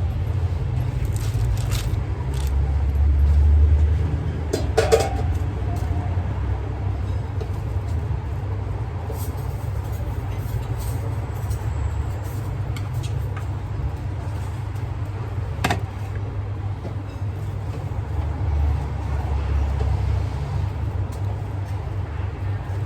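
Low, steady rumble of road traffic, swelling as vehicles pass about three seconds in and again later on, with a few sharp clicks and clinks over it.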